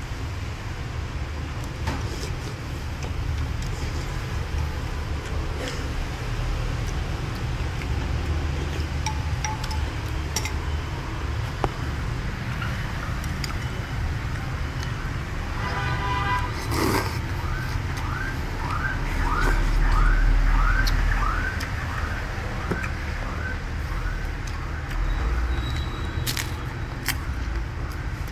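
Steady rumble of street traffic, swelling about two-thirds of the way in as a vehicle passes. At the same time an electronic alarm chirps about twice a second for several seconds. A few light clinks of a spoon and chopsticks against a bowl are scattered through.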